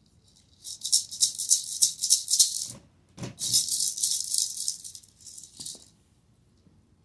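Small plastic toy maraca shaken quickly in two spells of about two seconds each, with a short break between them.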